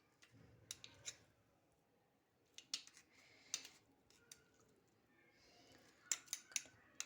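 Faint, scattered clicks and scrapes of grated ginger being pressed through a kitchen sieve to squeeze out its juice.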